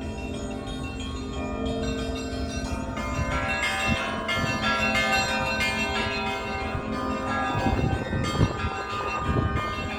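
Bells of St Isaac's Cathedral ringing: several bells of different pitches struck in quick succession in the Russian Orthodox manner, their notes overlapping and ringing on. The strikes come thicker from about three seconds in, over a low rumble.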